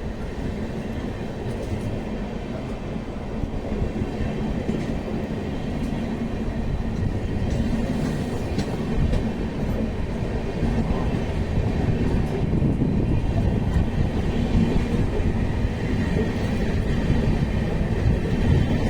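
Train of LHB coaches hauled by a WAP-7 electric locomotive running on the track: a steady rumble of wheels on rail that slowly grows louder, with no horn.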